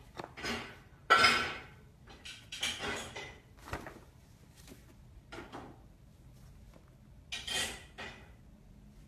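Stiff paper shopping bag rustling and crinkling in a series of short, sudden bursts as a cat moves about inside it, the loudest about a second in and another near the end.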